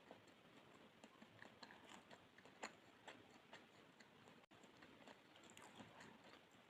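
Faint close-miked mouth sounds of chewing soft pandan sponge cake: small wet clicks and smacks, several a second, with one sharper click a few seconds in.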